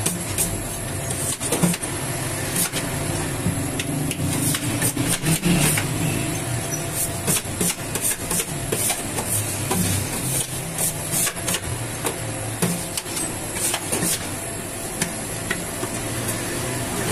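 Bakery dough machine running, drawing strips of dough out of a steel hopper: a steady low hum with frequent irregular clicks and knocks.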